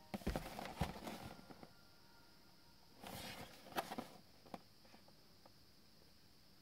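Hands gripping and turning a cardboard box: two short spells of scraping, rubbing and tapping on the cardboard, one at the start and one about three seconds in, with a few single light taps, over a faint steady hiss.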